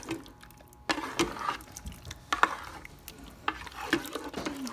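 A spoon stirring shrimp in tomato sauce in a cooking pot, with several sharp knocks and scrapes of the spoon against the pot after about the first second.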